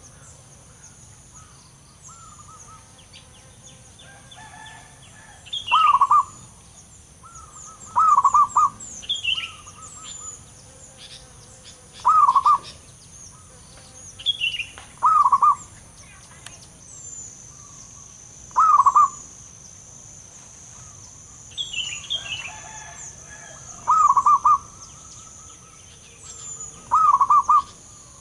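Zebra dove (perkutut) singing its rolling, trilled coo, a short phrase repeated every three to four seconds, about seven times. A steady high insect hum and faint chirps of other birds sound underneath.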